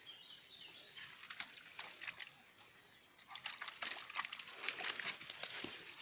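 Border collie puppies at a muddy rain puddle: faint wet pattering and splashing of paws in the mud, growing busier about halfway through, with a few faint high chirps in the first second.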